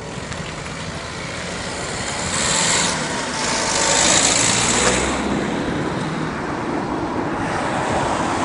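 Road traffic: cars driving past on a two-lane road, a steady hiss of tyres and engines that swells as vehicles pass close, about two and a half and four seconds in.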